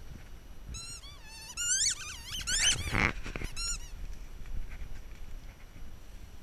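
Squeaky dog toy being chomped by a puppy: a quick series of high squeaks that waver up and down in pitch, starting about a second in and stopping about four seconds in, loudest near the three-second mark.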